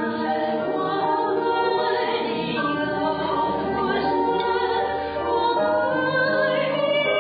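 A choir singing together in long held notes.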